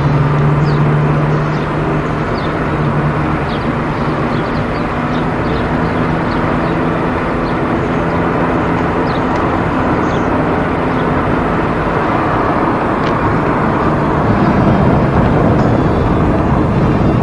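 Car driving along a highway, heard from inside: steady road and wind noise with a low engine hum that is strongest in the first few seconds.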